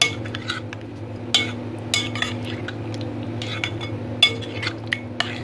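A spoon stirring chicken pieces through a thick yogurt and green herb marinade in a glass bowl, the spoon clinking sharply against the glass several times at uneven intervals. A steady low hum runs underneath.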